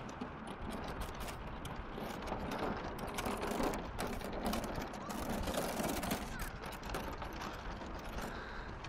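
Wind and handling noise on a handheld phone microphone: a steady rush with irregular crackling clicks throughout.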